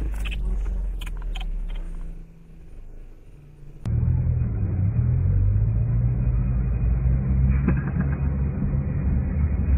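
Steady low engine rumble of a city bus in traffic, heard from inside a car alongside it, starting at a sudden cut about four seconds in. Before the cut, quieter road noise with a few sharp clicks.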